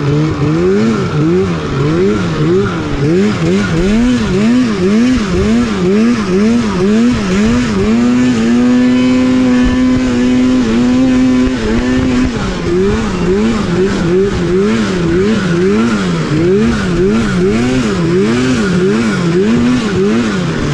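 Older Polaris RMK two-stroke snowmobile engine being ridden. Its pitch rises and falls in a quick, even rhythm, about three swings every two seconds. In the middle it holds steady for about four seconds, then the swings resume.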